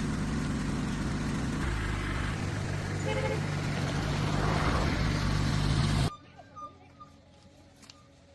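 A motor vehicle's engine running steadily, then cut off suddenly about six seconds in, leaving only faint sounds.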